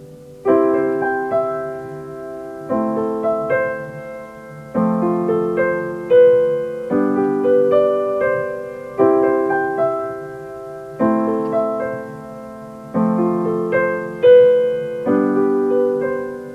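Solo acoustic piano playing an instrumental interlude: a new chord struck about every two seconds, with broken-chord notes rippling over each as it fades.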